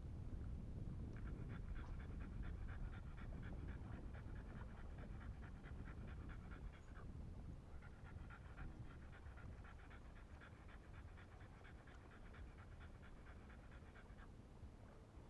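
French bulldog panting in quick, even breaths, in two long runs with a short break about halfway.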